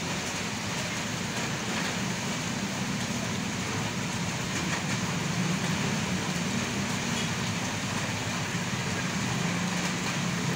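Rain on a city street with traffic: a steady hiss of rain and tyres on the wet road, under the low hum of passing car and motorbike engines.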